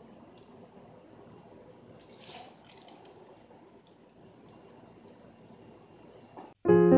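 Faint squishing and short squeaks of a plastic piping bag of soap frosting being squeezed in gloved hands. Near the end, piano music comes in suddenly and loudly.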